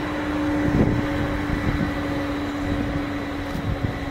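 Diesel locomotives running light past and moving away, with a steady engine drone under the wheel noise and a few short knocks from the wheels on the track. The sound eases slightly towards the end as they draw away.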